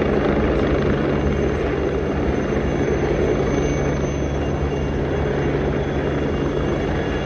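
Military aircraft engine noise at an air show: a loud, steady drone with a low hum running through it.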